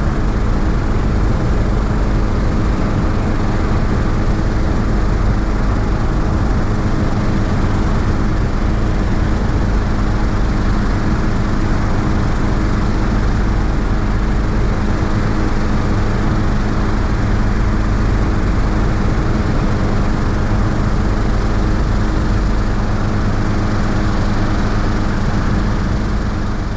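Hughes 269B light helicopter in steady flight: its four-cylinder piston engine and rotors running at a constant pitch, heard from a camera on a boom outside the cabin with airflow noise over it. The sound fades out near the end.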